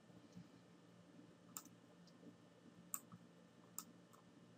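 A few faint computer mouse clicks over near-silent room tone, three of them clearer than the rest, about a second apart.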